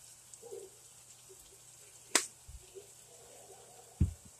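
Kitchen handling sounds at the stove: one sharp click about two seconds in, followed by a soft low thud, then a dull thump near the end, as a container and utensils are moved about.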